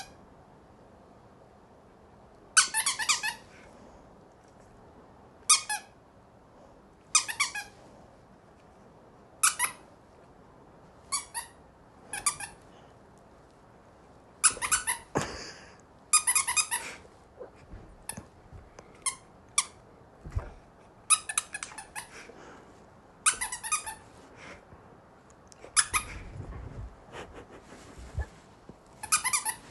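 Rubber squeaky dog toy squeaking again and again as a giant schnauzer chews it: single squeaks and quick runs of squeaks at uneven intervals. There are a couple of dull low thumps in the second half.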